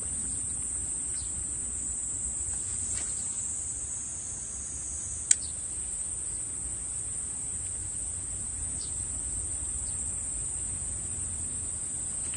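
Steady, high-pitched drone of summer insects, with a low rumble of wind or moving water beneath it. A single sharp click sounds about five seconds in.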